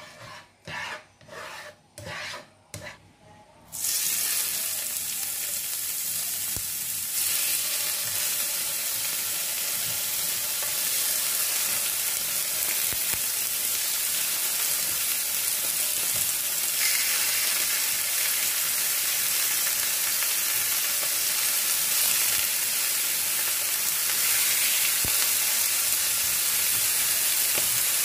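Plastic spatula scraping across a nonstick frying pan about five times. About four seconds in, a steady sizzle starts as seasoned chicken breast strips go into the hot oil, growing a little louder as more pieces are added.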